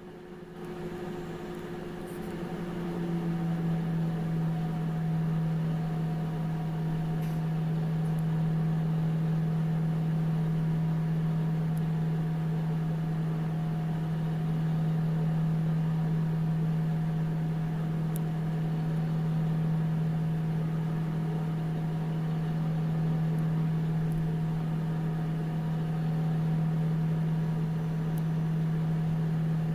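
National (Panasonic) microwave oven switching on and running with a steady low hum, which builds up over the first few seconds and then holds even.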